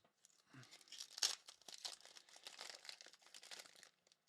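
Faint crinkling and tearing of a foil trading card pack wrapper being handled and torn open, a run of quick soft crackles.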